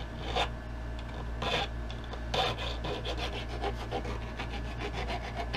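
Small hand file rasping across the edge of a sand-cast silver piece, rounding off the sharp edge left by the saw. A few separate strokes, then quicker, shorter strokes from about halfway.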